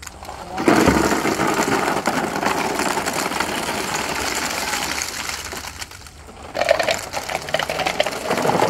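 Small plastic balls pouring from a plastic tub into another tub and spilling onto a floor covered in more balls: a dense, continuous clatter. It runs in two long pours, with a short break about six seconds in.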